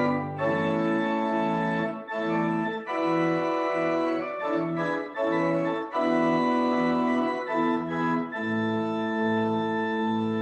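Organ playing the church prelude: sustained chords over a low note repeated about twice a second. About eight seconds in it moves to a long held chord over a lower, pulsing bass.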